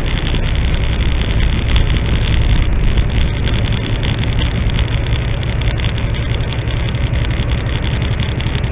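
Semi truck's diesel engine droning steadily with tyre and road noise, heard inside the cab while cruising at highway speed.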